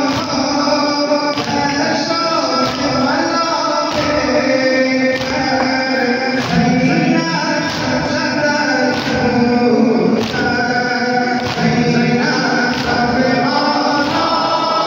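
A male reciter singing an Afghan Shia noha (mourning lament) with the congregation singing along in unison. Hands strike chests in unison, sineh-zani chest-beating, in a slap about every second and a quarter that keeps the beat.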